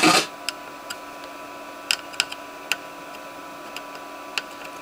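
Speaker hiss and a steady whine from a salvaged TDA7265 class AB stereo amplifier board, broken by about half a dozen sharp clicks and crackles. The amplifier is running on a 5 V supply, too low for it, which the owner blames for crackling and distortion.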